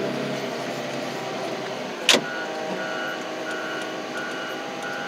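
A wheel loader's engine running steadily, with a sharp clunk about two seconds in. Right after the clunk its reversing alarm starts beeping at an even pace, about one beep every two-thirds of a second, as the loader backs up.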